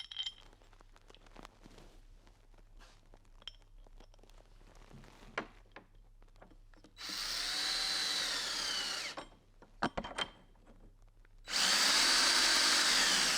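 Power drill running in two bursts of about two seconds each, its pitch rising and falling, with small clicks and taps of handling between them.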